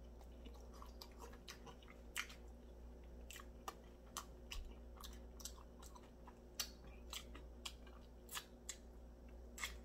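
Soft mouth sounds of someone eating a saucy chicken drumstick: chewing with wet lip smacks and clicks, irregular, about two a second. Near the end comes the sucking sound of fingers being licked.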